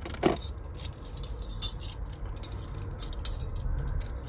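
Small metal costume-jewellery pieces clinking and jangling as they are picked through by hand: a scatter of irregular light clinks, with a heavier knock just after the start.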